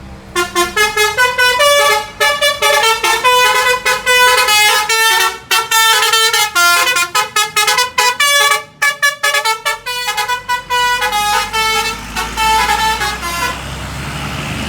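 Basuri telolet bus horn, a set of tuned air horns, playing a fast jingle of short notes that jump up and down in pitch for about thirteen seconds before stopping. A low rumble comes in under it in the second half.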